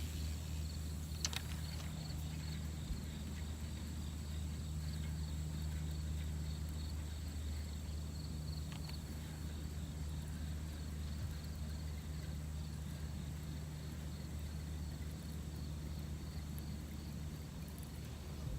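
Insects chirring in a fast, even pulse over a steady low hum, with one sharp click about a second in.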